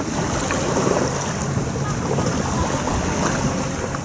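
Steady rush of wind and water around a sailboat under way, with wind buffeting the microphone.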